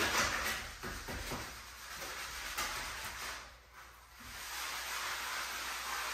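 Sponge scrubbing a wet glass shower door, with water running off the glass: a steady hiss with some soft knocks in the first second and a short lull about three and a half seconds in.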